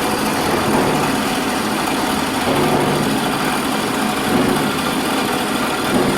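Portable boring machine running steadily off a car battery, its electric drive turning the boring bar in a bore.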